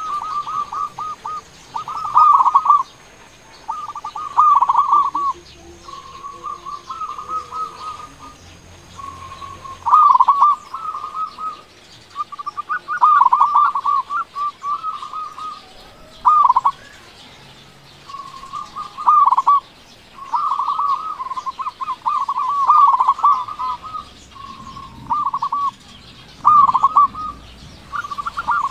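Local zebra dove (perkutut) singing: short phrases of quick cooing notes, repeated every second or two with brief pauses between them.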